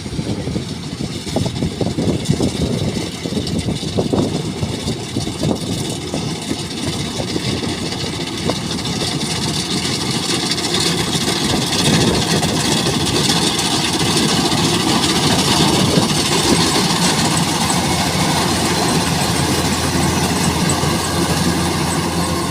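Rice combine harvester running under load, its engine and cutting gear growing louder over the first half as it comes closer, then holding steady.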